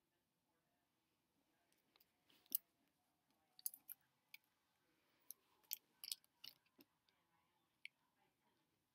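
A dozen or so light, irregular clicks and taps of small objects being handled, starting about two seconds in, the sharpest one about half a second later.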